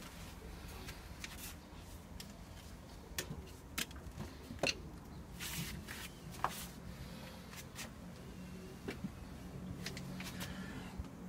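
Russian Blue cats playing on a tiled floor: scattered light taps, clicks and scuffs, with a couple of brief rustles near the middle, over a low steady hum.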